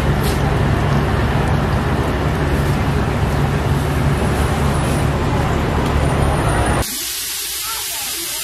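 A steady, loud machine drone with a low hum under it. Near the end it cuts suddenly to a quieter, even hiss.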